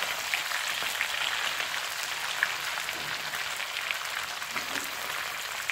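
Small chelwa fish sizzling steadily as they fry in hot refined oil over a high flame.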